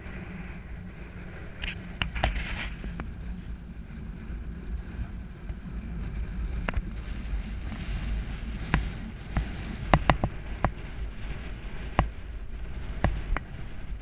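Wind buffeting the camera's microphone with a steady low rumble, broken by a dozen or so sharp clicks scattered through it.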